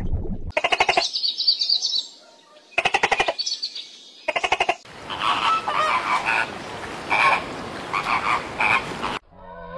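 Animal calls: three or four short, rapidly pulsed rattling trills, then a denser stretch of repeated calls that stops abruptly near the end.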